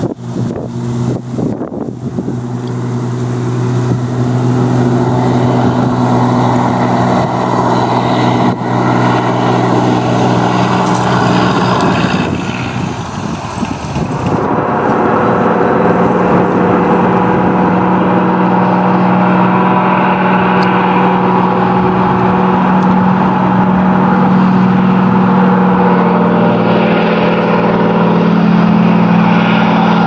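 Floatplane engine and propeller at high power running on the water, a steady drone. Wind gusts buffet the microphone in the first couple of seconds. The drone fades briefly about halfway through and comes back stronger and steadier.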